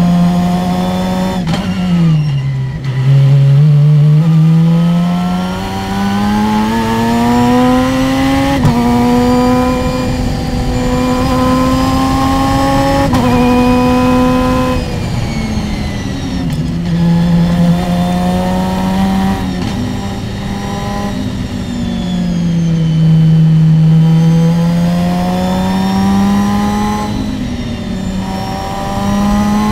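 Open-wheel single-seater race car's engine heard from the cockpit at racing speed. Its pitch climbs under throttle, jumps at gear changes and falls as the car slows for corners, several times over.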